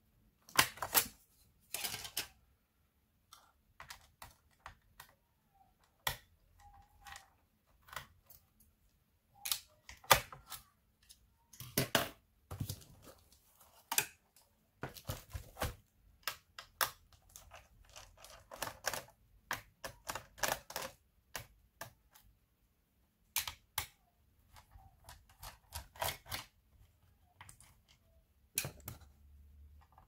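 Irregular clicks, taps and knocks of hands handling and working on the hard plastic underside of a Sony VAIO laptop, coming in scattered single clicks and short clattering clusters with quiet gaps between.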